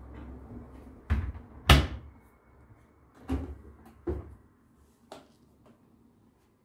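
A series of household knocks and clunks, about five over four seconds, the second one the loudest, like things being set down or cupboard doors closing.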